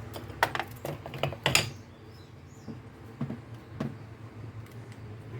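Light clicks and taps of starter-motor parts being handled and fitted together while the shift fork goes in: several close together in the first second and a half, then a few fainter ones.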